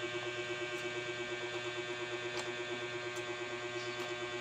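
Steady electrical hum with a buzzing edge, unchanging throughout, with a few faint clicks of a spoon against a plate.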